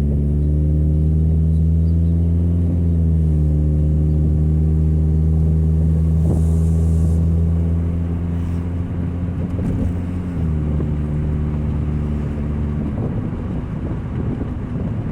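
2000 Nissan Altima's four-cylinder engine droning loudly through an exhaust that leaks at the braided flex pipe, while the car is driven. The drone holds steady, drops in pitch about ten seconds in, and gives way to a rougher rumble near the end.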